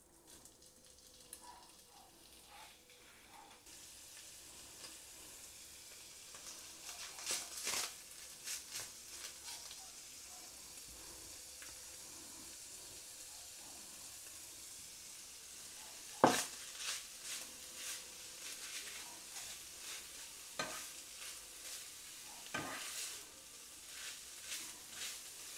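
Shredded boiled chicken breast and grated carrot frying in oil in a nonstick pan: a quiet sizzle, with scattered scrapes and clicks from food going in and a spatula stirring. About two-thirds through comes a sharp knock against the pan, the loudest sound, with a few smaller knocks after it.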